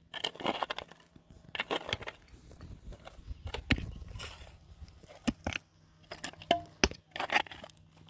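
Irregular clicks, knocks and short crackling scrapes, with a faint steady hum underneath.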